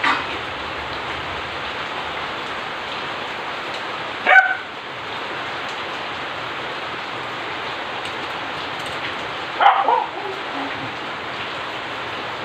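Steady rain hiss, with a dog barking briefly three times, about four and five seconds apart.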